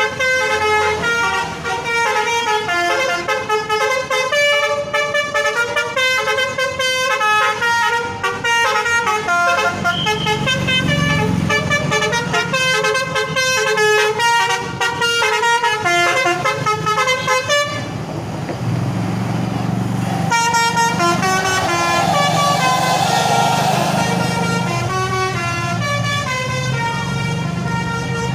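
Telolet basuri multi-tone bus horn playing a running melody, note after note. A low engine rumble grows louder underneath in the second half.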